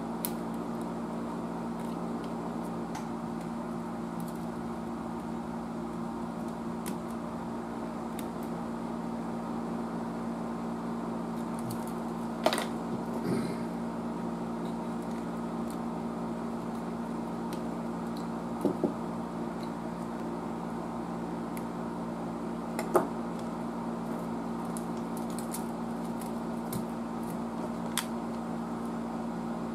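Steady low electrical hum, with a handful of sharp clicks and taps scattered through it from tools and hands on the tube tester's metal chassis, the loudest about two-thirds of the way through.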